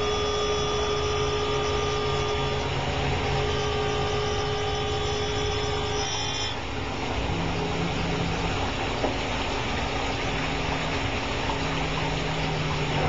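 Chevalier SMART series grinder convex-grinding a brake component under flood coolant, running with a steady hiss and hum. A steady high whine stops about halfway through, after which a lower hum comes and goes.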